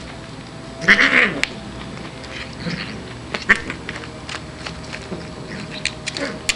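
A Siamese cat's call: a short loud one about a second in, then quieter calls, with a few light clicks in between.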